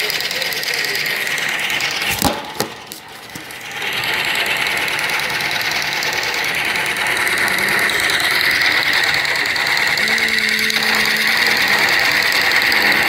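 Small electric motors and gearboxes of battery-powered toy train engines whirring steadily with a high hum as two engines push against each other on plastic track. About two seconds in there are a couple of clicks and the whir drops off briefly, then it picks up again.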